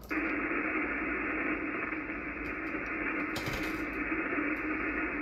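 Steady band-noise hiss from the Icom IC-746PRO HF transceiver's speaker on 80 metres, thin and narrow like a telephone line, cutting in abruptly as the previous transmission drops and the receiver is left with no station on frequency.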